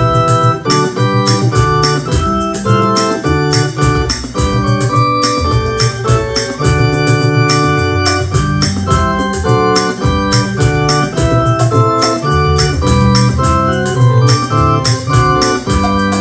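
Electronic keyboard playing a hymn tune in full chords over a moving bass line, with a steady beat throughout.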